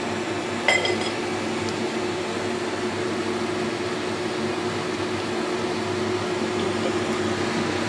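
Steady mechanical hum of an electric fan motor, with one short clink of a spoon against the pot a little under a second in.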